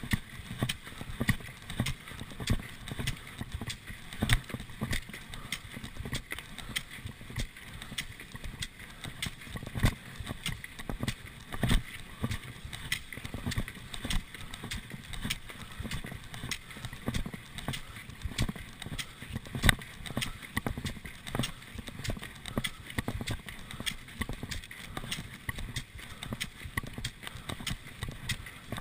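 Classic cross-country skis running in groomed tracks, with rapid, irregular clicks and knocks from the poles and skis and a low wind rumble on the microphone.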